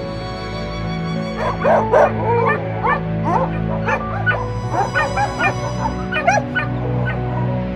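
Kennelled dogs giving many short yips and whines in quick succession, starting about a second and a half in and stopping shortly before the end, over soft background music with steady held tones.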